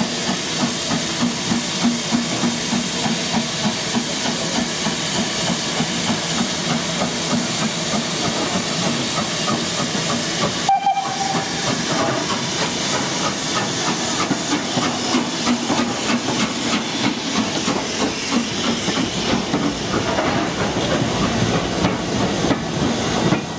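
Steam locomotive (BR Standard Class 4MT No. 75069) working a passenger train: regular exhaust beats over hissing steam. There is a sudden break about halfway through, after which the beats come quicker.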